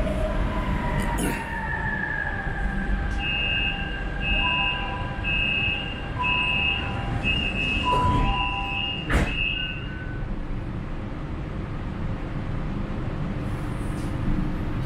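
Shanghai Metro Line 10 subway train coming to a stop: the traction motor whine falls away, then a run of short repeated electronic beeps, the door warning chime, sounds for several seconds with a sharp click near the end, over a steady low rumble inside the car.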